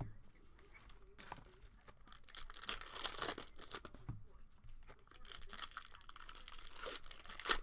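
Plastic cello wrapper of a basketball card pack crinkling and being torn open by hand, in a string of rustles and crackles, the sharpest one near the end.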